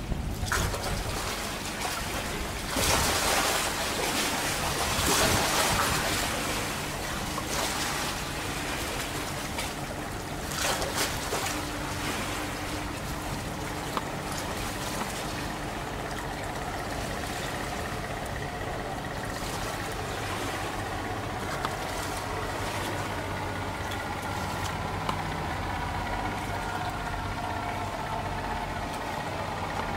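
Water rushing and lapping with a low steady motor hum underneath. A louder rush of noise comes about three to six seconds in.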